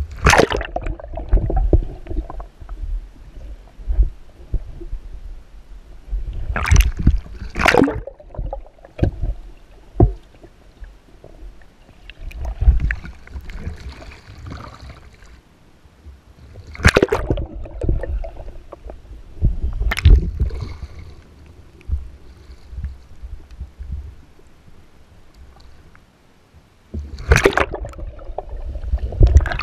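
Kayak capsizing and rolling back up again and again: loud splashes as the boat goes over and the paddler comes up, with sloshing and gurgling water in between, heard through the deck-mounted camera as it dunks under and comes back out.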